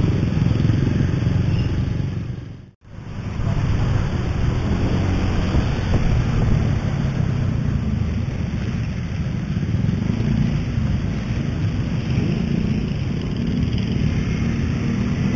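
Motorcycle being ridden in slow traffic: a steady low rumble of its engine and road noise. About three seconds in, the sound dips out for a moment and comes straight back.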